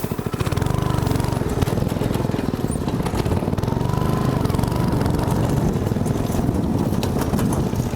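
Go-kart's small engine running under throttle with a rapid low chugging. It picks up and gets louder about half a second in.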